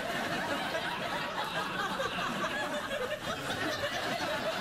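Studio audience laughing steadily, a dense mass of many voices that holds at an even level.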